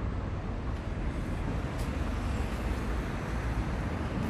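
Outdoor street ambience: a steady low rumble, like nearby road traffic, with no distinct events.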